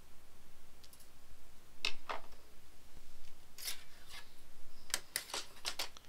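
Wire cutters snipping through thin red and black hookup leads: a series of sharp, short snips and clicks, several in quick succession near the end.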